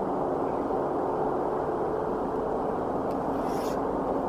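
Steady background rumble with a faint mechanical hum running under it. A man exhales pipe smoke with a soft breath a little past three seconds in.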